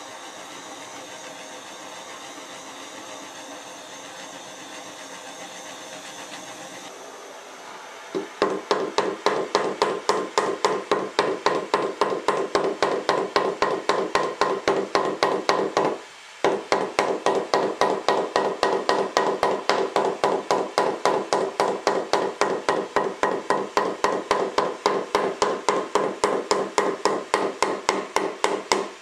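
Handheld propane torch hissing steadily. About eight seconds in, a hammer starts beating the edge of the heat-softened synthetic decking board in a fast, even rhythm of about three to four blows a second, with one short break partway through.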